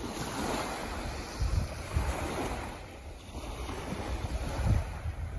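Small waves washing gently onto a sandy beach, with gusts of wind buffeting the microphone.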